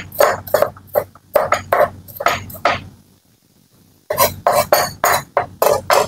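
Knife chopping on a cutting board: a run of sharp strokes, about two to three a second, pausing for about a second near the middle and then going on.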